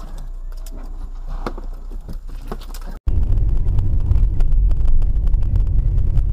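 Road and engine noise of a moving car heard from inside the cabin through a dashcam microphone, with scattered light clicks. About three seconds in, a cut brings a much louder, heavier steady rumble of another car driving.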